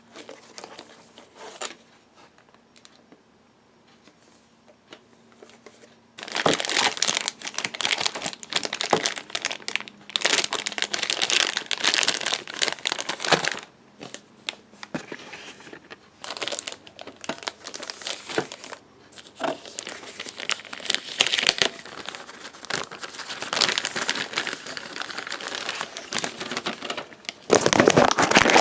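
Plastic bags and tissue-paper packing crinkling and rustling as parts are handled and lifted out of a box. The first few seconds hold only faint handling. Loud crinkling starts about six seconds in and goes on in uneven spells with short pauses, loudest near the end.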